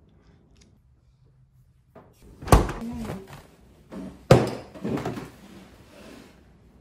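Two sharp thunks about two seconds apart, each followed by lighter knocks and clatter: tableware being set down hard on a wooden kitchen table, including a bowl, a cereal box and a plastic milk jug.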